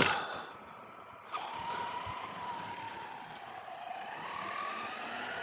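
Traxxas Sledge RC monster truck's brushless electric motor whining as it drives away. The whine wavers, dips in pitch about four seconds in and rises again near the end.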